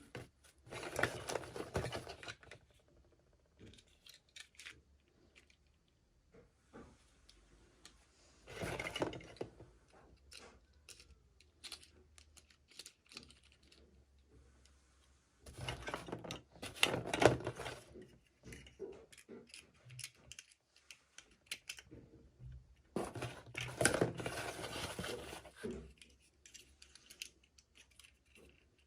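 Toy packaging being handled and opened by hand: four bouts of crinkling and rustling with small clicks and taps between them.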